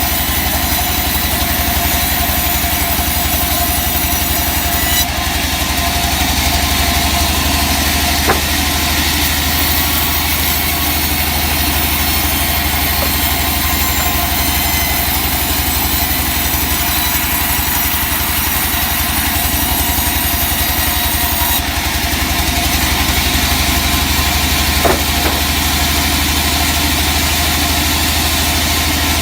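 Sawmill engine running steadily with a low hum. There is a short sharp knock about eight seconds in and another near the end.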